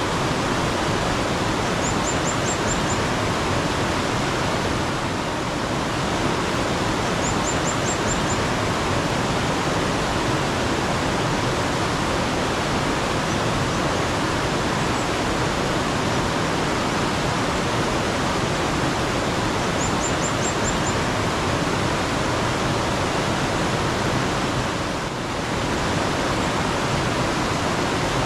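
Mountain stream running steadily, a dense, even wash of water sound. A bird gives a brief high trill of about five quick notes three times: near the start, around eight seconds in, and around twenty seconds in.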